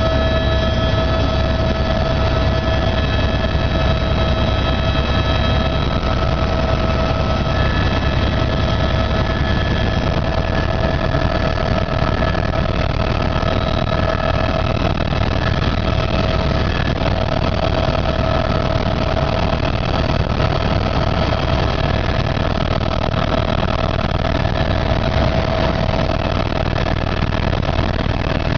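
Helicopter running steadily: a deep, constant drone with a steady high whine above it, unchanging throughout.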